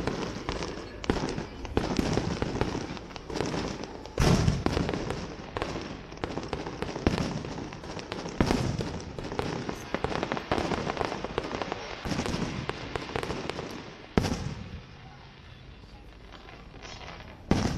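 Aerial firework shells bursting in a rapid, continuous string of bangs. A lull of about three seconds follows, then one more bang near the end.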